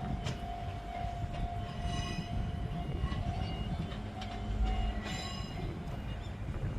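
Fujikyu 1000 series electric train running on the line: a steady low rumble with a held whine and a few sharp clicks.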